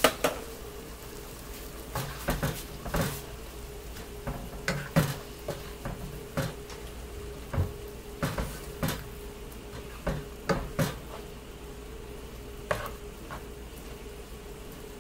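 Sliced sausages, peppers and onions sizzling in white wine in a pot, with irregular clacks and scrapes of tongs and a spatula against the pot as they are stirred.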